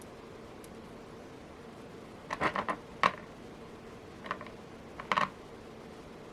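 Small clicks and taps of metal beads and lava stone beads being handled and threaded: a quick cluster of clicks a little after two seconds in, a sharper single tick just after, then a few more clicks later on.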